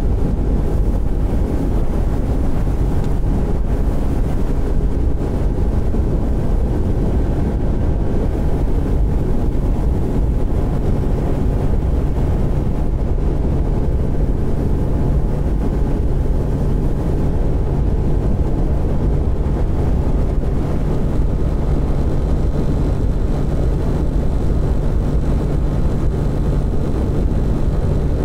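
Outboard motor of an aluminium fishing boat running steadily at speed as the boat planes across the water, a constant engine drone with water and wind rush.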